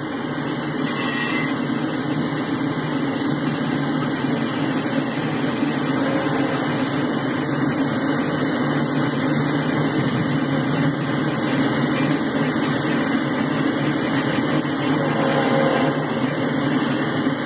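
Boxcars of a freight train rolling past on the track: a steady rumble of steel wheels on rail that builds slightly.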